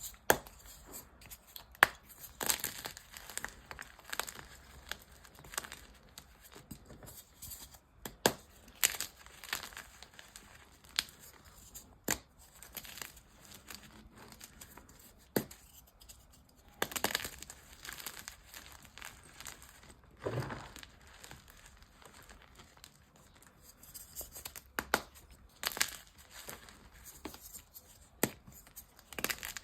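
Blocks of dyed gym chalk being crunched and crumbled, giving irregular sharp snaps mixed with softer crackles.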